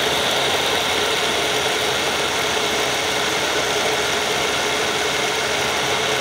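Electric blender running steadily, blending mangoes, cream and sugar into a mango shake, its motor giving a steady whine.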